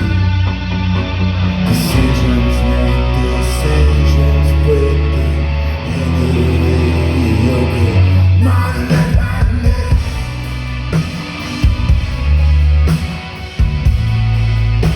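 Rock band playing a song live, with electric guitar, bass and drums and a voice singing.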